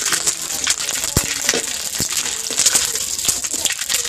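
Frog skin sizzling and crackling as it fries in hot oil in an aluminium wok, with a metal spatula clinking against the pan a couple of times.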